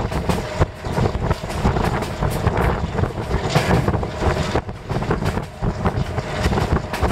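MDmot diesel railcar train running, with heavy wind buffeting the microphone: a steady rumble full of irregular knocks and rattles, with a faint steady tone underneath.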